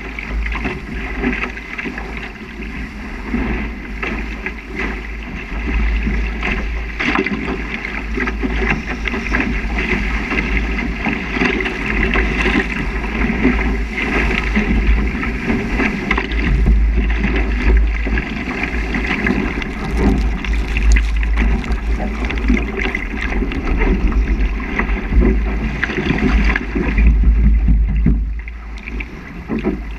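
Water rushing and spraying off the hull of a small Spiral sailing dinghy sailing fast through chop, with a heavy rumble of wind buffeting the microphone and scattered splashes.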